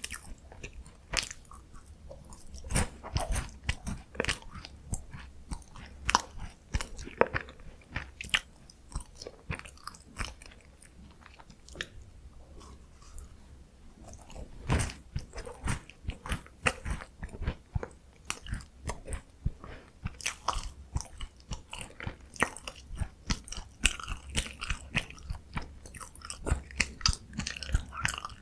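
Close-miked eating of a crunchy chocolate snack: bites and chewing with crisp, irregular crunches that thin out for a few seconds around the middle.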